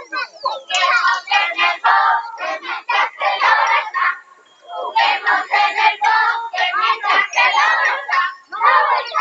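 Children singing a circle-game song together, with a short break about four seconds in.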